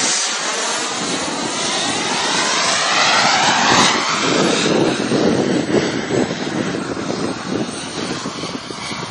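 Fighter jet engine noise as the aircraft passes overhead in a display manoeuvre: a loud, rushing jet sound with sweeping shifts in pitch. It is loudest about three to four seconds in, then slowly fades.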